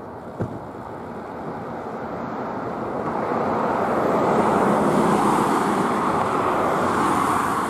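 Jet noise from the four GEnx-2B engines of a climbing Boeing 747-8 Intercontinental, a broad rushing roar that grows steadily louder over the first four seconds and then holds. A brief click about half a second in.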